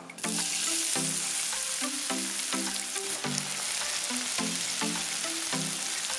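Chopped onions sizzling in hot oil in a kadhai, the sizzle starting suddenly a fraction of a second in as they hit the oil and then frying steadily while they are stirred with a wooden spatula.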